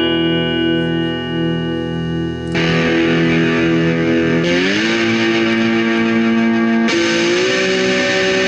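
Electric guitar through stomp-box effects pedals and a Peavey combo amp: a held chord with a regular pulsing wobble, switched about two and a half seconds in to a rough, distorted tone. The pitch slides up around the middle and again slightly near the end.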